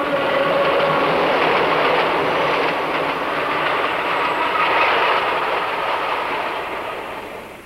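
A train passing on the rails, its wheels clattering. The sound starts abruptly and fades away near the end.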